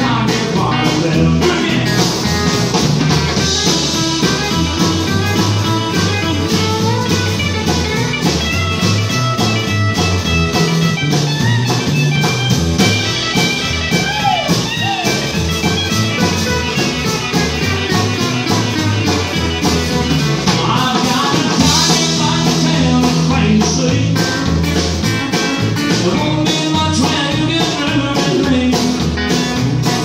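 Live country band playing with a steady beat: solid-body electric guitar, acoustic guitar, electric bass and drum kit.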